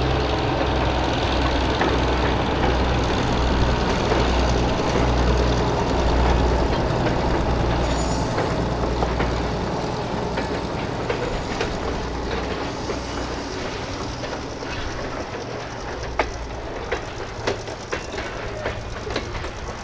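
Centercab diesel locomotive's engine running with a low, pulsing throb that grows fainter as the train moves off, and wheels clicking over rail joints in the last few seconds.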